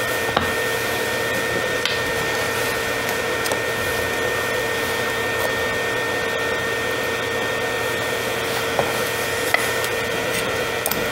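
Hot air rework station blowing steadily, its fan giving an even rushing noise with a constant hum, as used to solder an eMMC chip onto a circuit board; a few faint ticks from tools.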